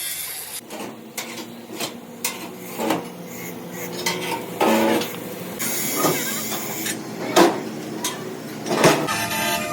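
Metal parts clanking and knocking irregularly, a dozen or so sharp metallic hits, some of them ringing briefly.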